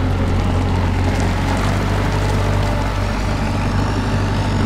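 John Deere diesel engine of a 1992 Bateman Hi-Lo 2001 self-propelled crop sprayer running steadily as the machine drives past.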